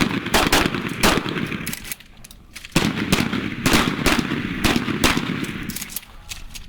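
Several shotguns firing rapidly and overlapping along a firing line, in two quick strings of shots with a short pause about two seconds in.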